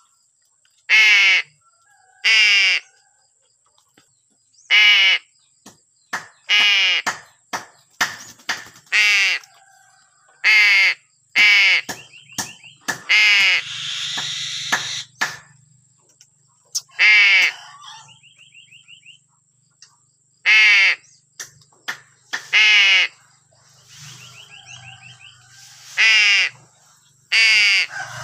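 A crow cawing again and again, about a dozen loud caws that each fall in pitch, with a quieter gap of a few seconds in the middle. Short, higher rattling calls, typical of a Javan myna's chatter, come between some of the caws.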